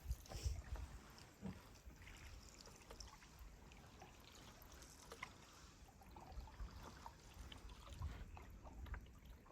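Canoe paddling on calm water: faint drips and trickles off the paddle with scattered small ticks and knocks, and a low wind rumble on the microphone near the start and again near the end.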